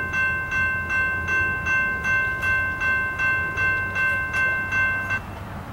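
Railroad grade-crossing warning bell ringing in rapid, even strikes, about two and a half a second, then cutting off suddenly about five seconds in, over a low rumble.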